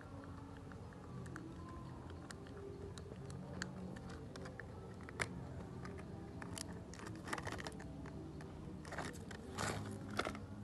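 A thin plastic cup crinkling and crackling as a puppy chews and paws at it: scattered sharp crackles, thickening into quick clusters in the second half. Soft background music runs underneath.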